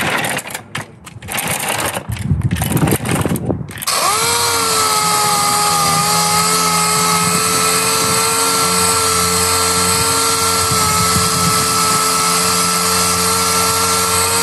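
Dual-action orbital sander starting up about four seconds in and running at a steady pitch, sanding old paint off a car door panel. Before it starts there are a few seconds of irregular clatter and handling noise.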